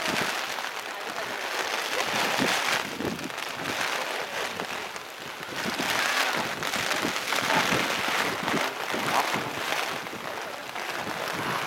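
Rain and wind noise on the microphone: an even rushing hiss that swells and dips every second or two.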